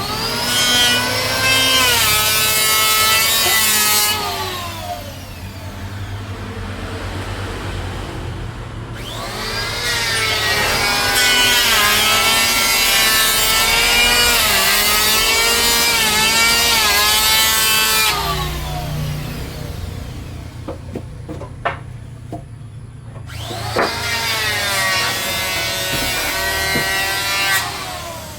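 Electric power tool cutting bayur wood in three long passes. Its whine sags in pitch under load and rises again as it frees up, with quieter gaps and a few clicks between passes.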